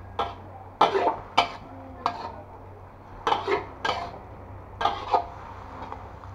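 Metal spatula scraping and clanking against a thin aluminium wok as water spinach is stir-fried, about eight irregular strokes over a steady low hum.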